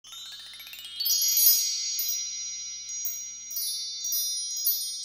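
Sparkling chime sound effect for an intro card: a quick upward sweep of high bell-like tones, then a bright chime strike about a second in that rings on, with a few lighter chime strikes in the last couple of seconds.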